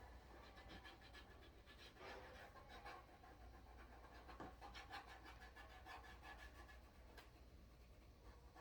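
Faint, rapid scratching of a marker colouring on a plastic toy gun.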